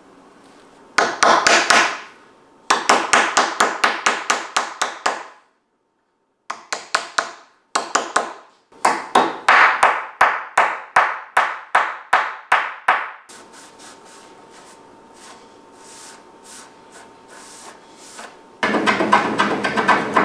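Wooden mallet tapping a wooden tabletop edge in four bursts of quick, light blows, several a second, to knock the table halves into line. About two seconds before the end, a dense, steady scraping starts, a hand plane shaving the wooden edge.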